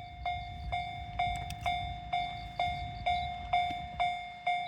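Japanese level-crossing warning bell ringing in an even rhythm of about two strikes a second, over the low rumble of a train.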